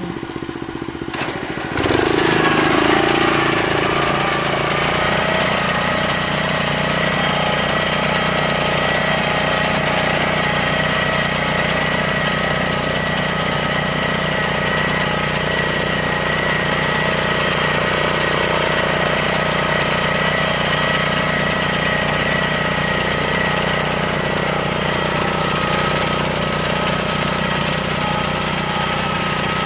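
Walk-behind paddy reaper's engine running. It gets louder about two seconds in, then runs steadily while the reaper cuts standing rice.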